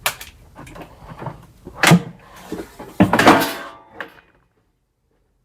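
Knocks and clunks of stored household items and boxes being handled and shifted, with a louder scraping rattle about three seconds in. The sound cuts off abruptly a second before the end.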